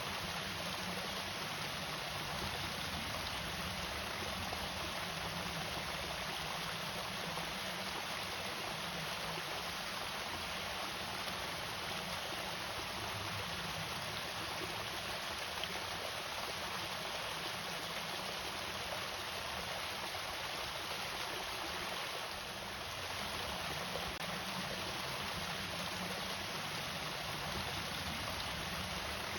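Water pouring over a small irrigation-channel waterfall, a steady splashing flow that barely changes.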